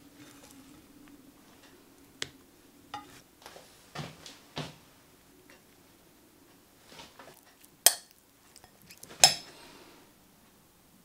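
Utensils tapping, scraping and clinking against a ceramic plate as roast vegetables and a cod fillet are plated with silicone tools and chilli sauce is spooned on with a metal spoon. A scattering of light knocks gives way near the end to two sharp clinks about a second and a half apart.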